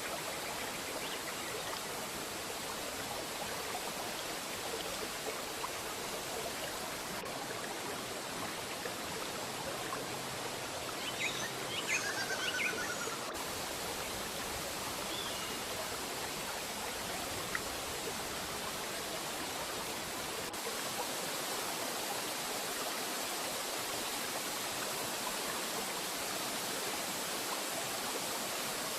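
Waterfall with a steady, even rush of falling water. A bird calls briefly a little before the middle, a short run of notes falling in pitch.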